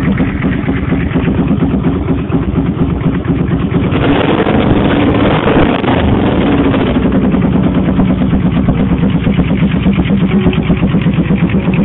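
Suzuki VZ800 Marauder's V-twin engine running steadily with an even, rapid pulsing beat.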